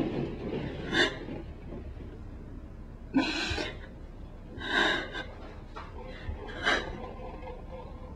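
A woman crying: several short, sharp sobbing breaths and sniffles a second or two apart.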